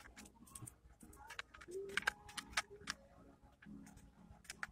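Irregular light plastic clicks and taps as the back cover of a Globe at Home prepaid Wi-Fi modem is handled and snapped shut over its SIM slot.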